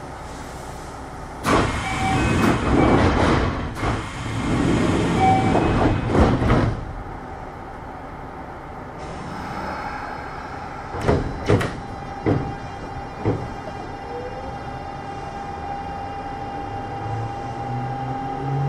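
Kintetsu 6620-series commuter train at a station stop, heard from inside the car: a few seconds of loud door and air noise, then several sharp knocks. Near the end the traction motors begin a rising whine as the train starts to pull away.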